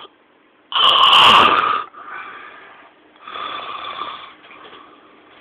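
A man snoring: one loud snore about a second in, then a second, softer snore a little past three seconds.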